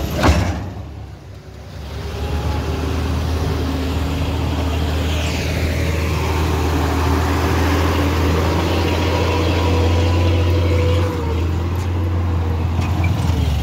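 Heavy Bedford-type truck engine running close by as the truck creeps slowly past, a steady loud low drone. A sharp knock comes just at the start, and a brief falling whine about five seconds in.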